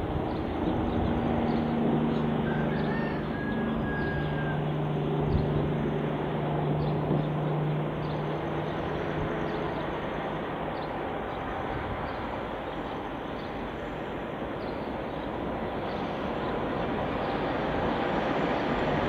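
Diesel locomotives hauling a long loaded coal train towards the listener: a steady low engine drone over the rumble of wheels and wagons on the rails, growing louder near the end as the train draws close.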